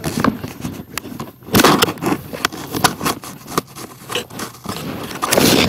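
Close-up scraping and rustling handling noise, broken by many sharp clicks, with louder bursts about a second and a half in and near the end.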